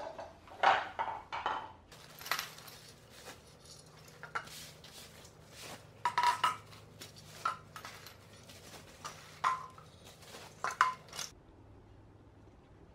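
Metal-bodied LED light bars and bags of metal mounting brackets being unwrapped from bubble wrap and set down on a tile floor: a string of sharp metallic clinks and knocks, some with a short ringing tone, with packaging handling sounds between them, stopping near the end.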